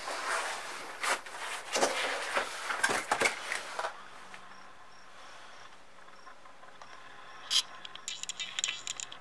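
Cardboard laptop box being opened: the seal torn and the flaps and lid rustling and scraping, with several sharp clicks in the first few seconds. Then it is quieter, and a sharp snap near the end is followed by brief cardboard crackling.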